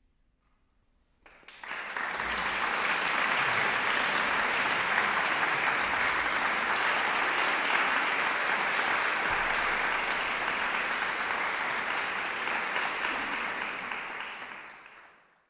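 Concert audience applause breaking out about a second in, after a moment of silence at the end of the piece, then steady clapping that fades out near the end.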